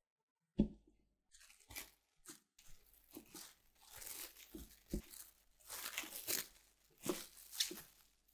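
Plastic cling film crinkling and rustling in irregular bursts as it is pulled around and pressed onto a loaf cake, after a single sharp thump about half a second in.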